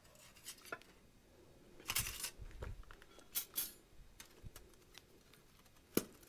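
Gloved hands handling dry wood shavings and small sticks and putting them into a small metal hobo stove's tray: scattered light rustles and clicks, with a sharp knock near the end.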